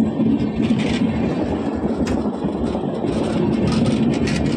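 Express train passenger coaches rolling past at close range: a steady loud rumble of wheels on rail, with a few sharper clacks through it.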